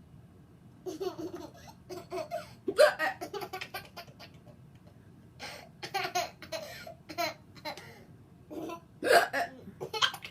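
Young child laughing hard in short bursts, broken by sharp hiccups: he is laughing so hard that it sets off his hiccuping. There is a short pause in the middle.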